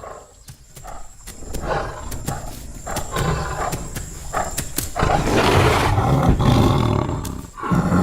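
Young Bengal tiger growling and snarling in low, rough rumbles that build to a louder stretch about five seconds in.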